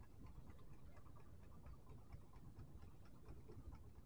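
Near silence: a faint low rumble with faint, irregular ticking, several ticks a second.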